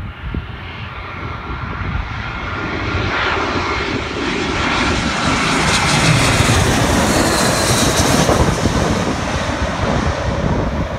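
Twin-engine jet airliner on final approach, landing gear down, passing low overhead. The jet noise builds over the first few seconds, is loudest about six to eight seconds in with a falling whine as it goes over, then begins to ease.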